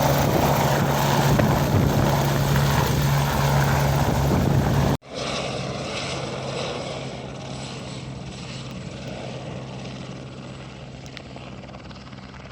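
Helicopter rotor and engine running with a loud, steady hum. About five seconds in, the sound breaks off abruptly, comes back much quieter and fades gradually.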